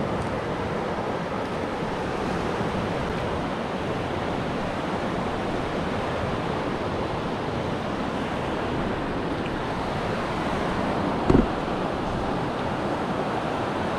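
Surf breaking and washing up on a sandy beach: a steady rush of waves mixed with wind. One brief low thump sounds near the end.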